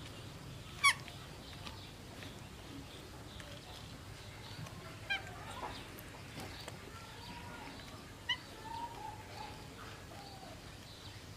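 Three short, sharp animal calls: the loudest about a second in, the others about five and eight seconds in. Fainter chirping sounds in between.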